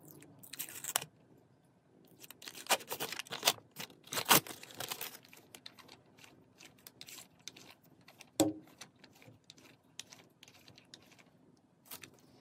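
Sticky sheet being peeled and torn off a paper lint roller, crackling in several bursts, the loudest about 2 to 5 seconds in, followed by lighter rustling and ticks as the roller is handled. A brief squeak about two-thirds of the way through.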